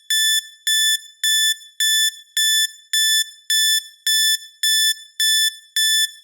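Electronic timer alarm beeping: a steady run of identical high-pitched beeps, just under two a second, signalling that the countdown has run out.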